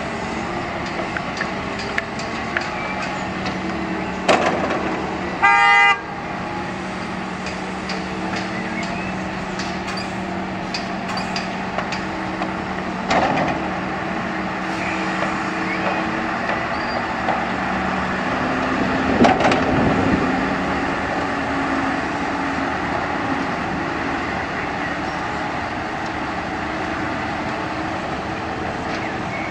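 Diesel engines of Volvo excavators and tipper trucks running steadily while digging and loading soil, with a few sharp thuds as loads drop into the trucks' steel bodies. About five seconds in, a horn sounds once, briefly and loudly.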